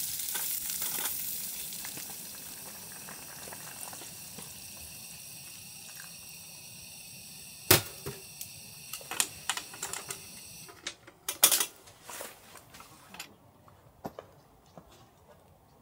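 Food sizzling in a pan, dying down over the first couple of seconds and carrying on softly until it cuts off about eleven seconds in. A sharp click comes about eight seconds in, followed by a scatter of light clicks and knocks.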